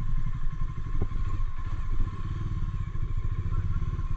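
Motorcycle engine running at low speed as the bike rolls along, a fast steady low throb. A short knock sounds about a second in, and a faint steady high tone runs beneath.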